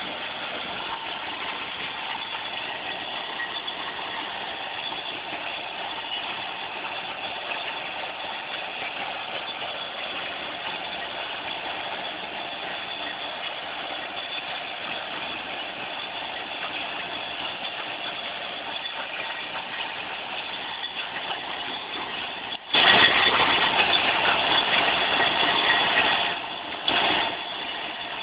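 Tractor engine running steadily while working a field implement. About two-thirds of the way through, a much louder rush of noise sets in suddenly, lasts a few seconds, stops, and comes back once briefly.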